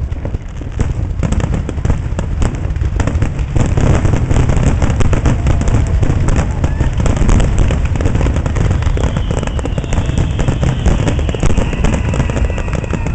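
Aerial fireworks display in a rapid-fire barrage: dense, closely spaced bangs and crackling over deep booming, growing louder about four seconds in. A thin, slowly falling whistle runs through the last few seconds.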